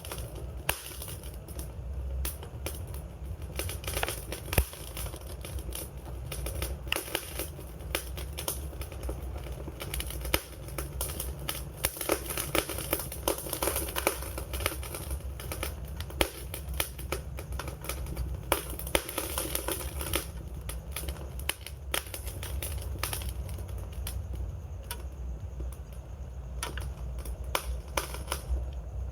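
Campfire crackling steadily, with frequent irregular sharp pops and snaps over a low, steady rumble of the flames.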